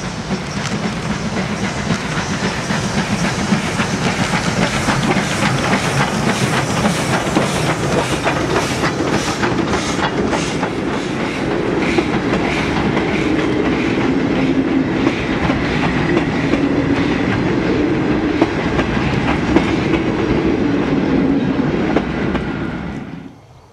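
SNCF 140 C steam locomotive, a 2-8-0 Consolidation, passing at speed with its exhaust beats, followed by its passenger coaches rolling by, wheels clattering over the rail joints. The sound cuts off suddenly near the end.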